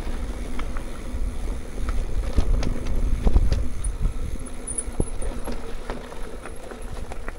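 Mountain bike being ridden on a dirt trail: wind buffets the microphone while the tyres and the rattling bike give off scattered knocks and clicks over the bumps.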